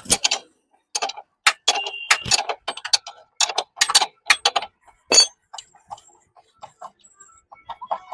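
Irregular sharp metallic clicks and clinks of a spanner working the rear axle bolt of a Honda Unicorn motorcycle.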